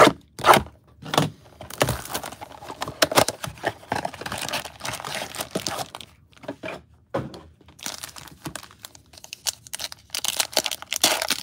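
A cardboard trading-card blaster box being slit open with a few sharp cuts and snaps, then foil card packs crinkling as they are handled. Near the end a foil pack wrapper is torn open with a louder burst of crinkling.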